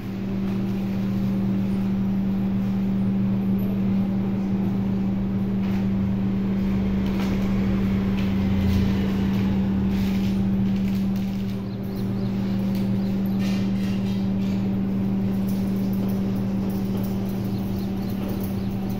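A steady low hum from a motor or electrical machine, holding one pitch throughout, with scattered light rustles and clicks between about 6 and 16 seconds in.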